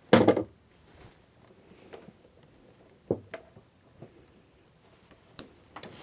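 Hands handling a plastic quick-splice wire connector and wires on a plywood panel: a knock at the start, two soft clicks about three seconds in, and a sharp plastic click a little after five seconds.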